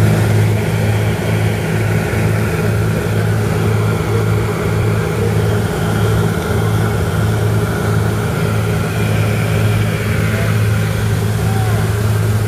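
Grumman G-44 Widgeon's twin piston engines and propellers droning steadily in cruise flight, heard inside the cabin as a loud, even low hum.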